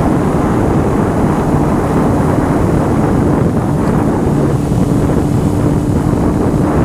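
Heavy wind noise buffeting the microphone on a moving Honda CBR motorcycle, with the engine's steady hum at cruising speed underneath.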